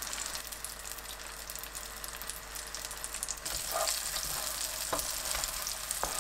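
Butter sizzling and crackling steadily around onion halves frying in a pan. From about halfway through, a spatula pushes the onions across the pan, adding a few short scrapes and knocks.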